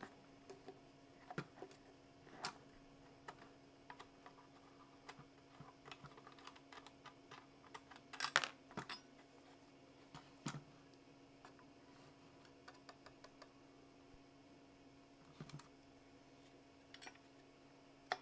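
Faint, irregular small clicks and taps over a steady low hum, with a brief cluster of louder clicks about eight seconds in.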